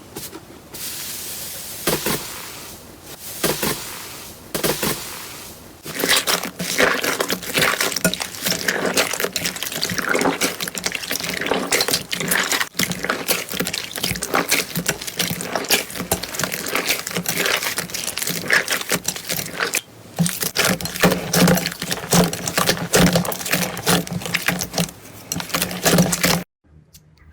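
Slime being squished and worked by hand: dense wet clicking and popping. It is quieter for the first several seconds, then busy and steady, and it cuts off abruptly near the end.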